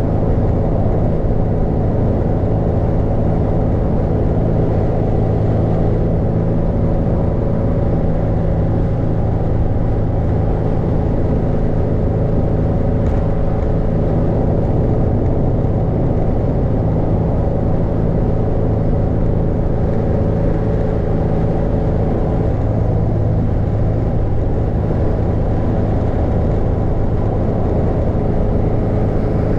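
Steady road and engine noise inside a car cruising at highway speed: tyre noise with a low, even hum.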